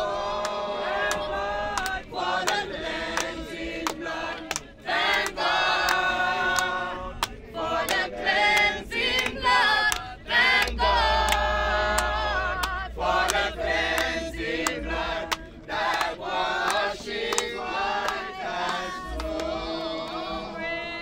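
Group of men and women singing a gospel hymn together, with frequent sharp strikes through the song.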